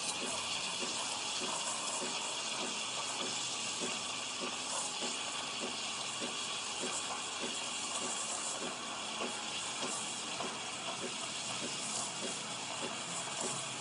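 Pascale espresso machine giving off a steady hiss of steam and running water.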